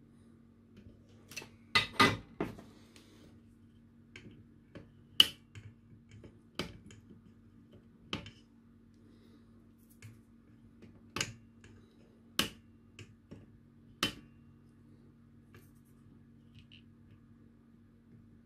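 Sharp snips of flush side cutters clipping the excess component leads off the soldered side of a small circuit board, a series of single cuts a second or a few seconds apart, over a faint steady hum.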